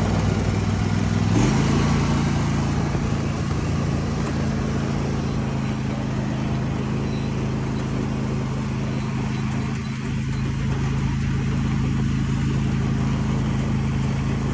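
An engine running steadily, its speed stepping up once about a second and a half in and then holding.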